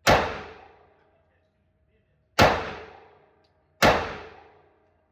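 Three pistol shots from a 9mm Smith & Wesson M&P: one at the start, a second about two seconds later and a third a second and a half after that. Each shot dies away in about a second of echo.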